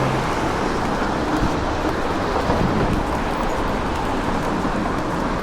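City street traffic: a steady wash of noise from passing vehicles.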